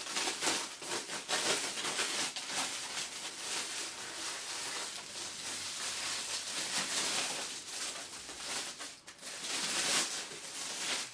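Thin plastic protective bag rustling and crinkling as a flat-screen monitor panel is handled and slid out of it.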